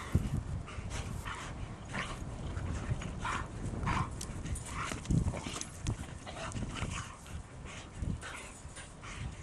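Greyhounds making a string of short, irregular dog noises.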